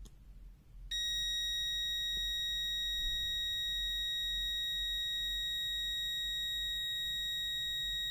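Ivrzliang ZL2021 smart multimeter's continuity buzzer sounding one steady high-pitched beep, starting about a second in and held without a break, as the probes sit across a 10-ohm resistor, under the meter's 50-ohm continuity threshold.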